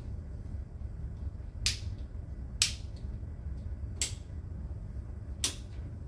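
Wall-plate light switches in a three-way lighting circuit flicked four times, each a sharp click, switching the lights on and off from different switches.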